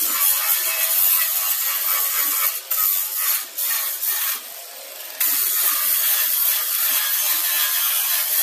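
Cordless angle grinder with a flap disc grinding a weld seam flush on a steel door patch panel, a steady whine over the rasp of the disc on metal. The grinding eases off briefly a few times, longest for under a second around the middle, then runs steadily again.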